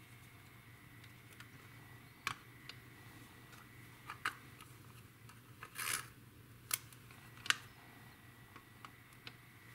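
Plastic model-kit fuselage being handled and set down on a workbench: a few scattered light clicks and taps, with a short scraping rustle about six seconds in.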